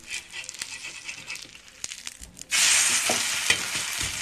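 Hot oil crackling faintly in an iron pan with light metal spatula clicks, then about two and a half seconds in a sudden loud sizzle as fresh rice-flour batter for pitha hits the hot oiled pan and is spread with a steel spatula.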